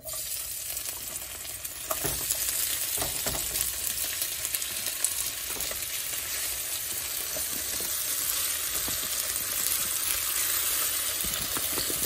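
Sliced potatoes and green peppers tossed in olive oil hitting a hot oiled nonstick skillet: a sizzle that starts suddenly and goes on as a steady frying hiss. A few knocks of a wooden spoon against the bowl and pan about two and three seconds in.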